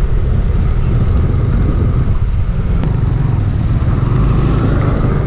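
Motor scooter riding along at a steady speed: engine drone mixed with road and wind noise, heard from the rider's seat.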